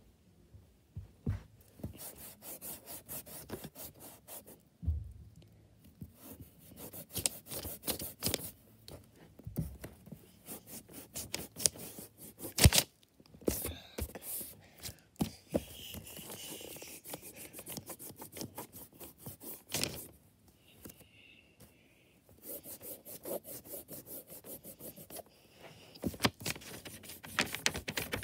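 A rubber eraser scrubbing back and forth over pencil lines on paper, in runs of quick strokes broken by a few short pauses.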